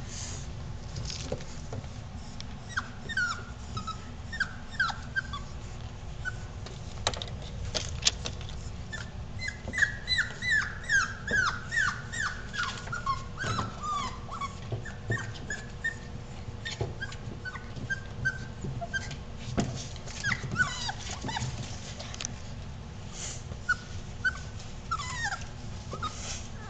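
Five-week-old bullmastiff puppies whimpering and squealing: short high cries that fall in pitch, coming thick and fast for a few seconds around the middle, with scattered sharp clicks.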